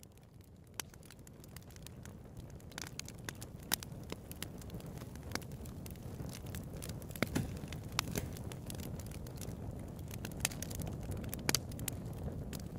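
Fire crackling: irregular sharp pops and snaps over a low steady rush, growing louder over the first few seconds.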